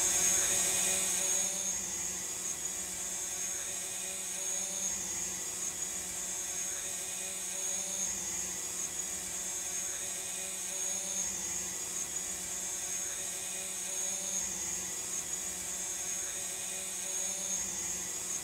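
Small quadcopter drone's motors and propellers whirring steadily in flight, with a constant high whine over a low hum, a little louder in the first two seconds.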